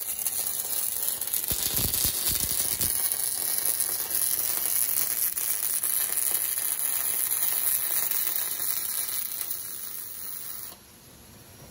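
Robotic MIG welding arc burning along a seam in sheet steel: a steady crackling hiss that drops off sharply near the end, leaving a fainter hiss.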